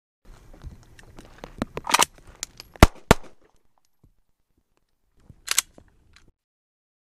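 Handgun being worked: a run of irregular sharp clicks and clacks. The two loudest snaps come about a third of a second apart near the middle, and a short rattle follows a couple of seconds later.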